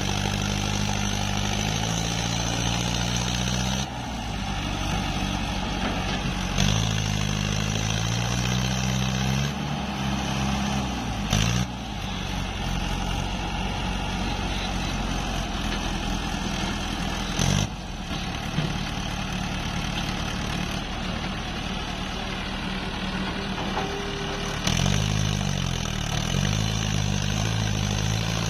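Diesel engines of a Cat 320D excavator and a Mahindra tractor running together, the engine note shifting up and down several times as the machines work. Two short sharp knocks, about 11 and 17 seconds in.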